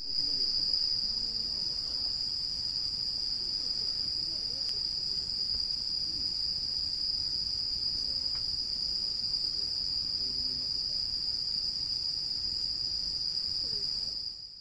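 Crickets singing in a steady high-pitched chorus, one unbroken trill that fades in at the start and fades out at the end.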